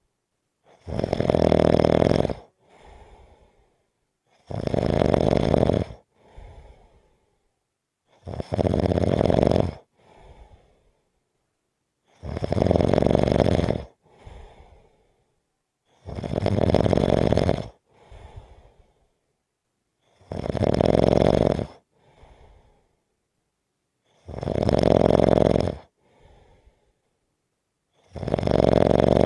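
Slow, regular snoring: a loud snore about every four seconds, each lasting under two seconds and followed by a short, much softer breath.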